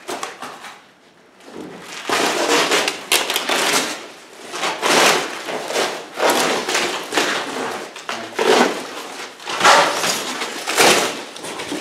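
Plastic stretch wrap and foam packing sheets crinkling and rustling in a series of irregular bursts as they are pulled off a packed machine.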